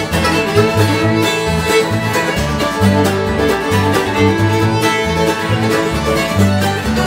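Acoustic bluegrass band playing live: acoustic guitars, banjo and upright bass, with a steady bass line under quick picked notes and no singing.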